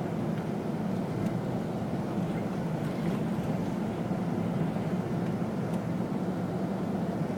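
Steady drone of a vehicle's engine and running noise while driving, low and even, with no change in speed.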